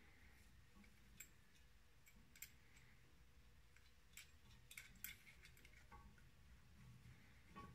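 Faint, scattered metallic clicks of a tool being handled and threaded by hand on a diesel cylinder head, a handful of sharp ticks over near silence.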